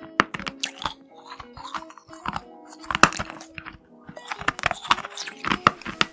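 Close-miked crunching and chewing of hard, building-block-shaped candies: many sharp crunches in quick succession, over background music with held notes.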